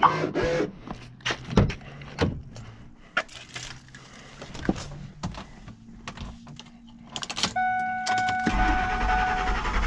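Clicks, knocks and keys jangling at the driver's seat of a Ford Expedition, then a steady tone comes on about seven and a half seconds in. About a second later the starter cranks the V8, which is just catching at the very end: the first start after the battery and terminals were replaced.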